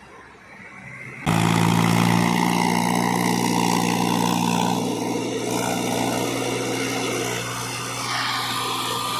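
Heavy diesel engine running steadily, cutting in suddenly about a second in after a quiet start.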